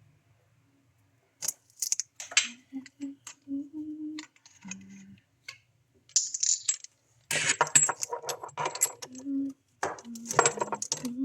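Small metal objects clinking and jingling in a run of quick, sharp clicks, as when metal tools or fittings are handled. Short low hummed notes come in between, loudest in the second half.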